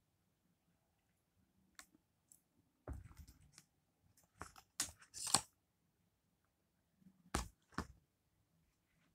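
Aluminium foil takeaway trays handled on a table: a few scattered sharp crinkles and clicks of thin foil, with one longer crinkle about five seconds in.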